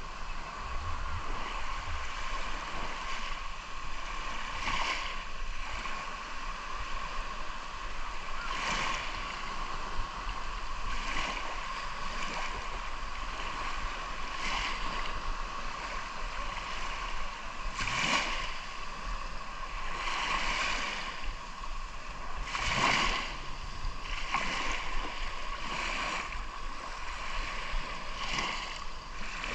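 Sea surf: small waves breaking and washing in every few seconds over a steady hiss of moving water.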